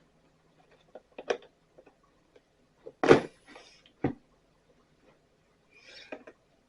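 A few scattered clicks and knocks of hand tools and blower parts being handled during disassembly, the loudest about three seconds in.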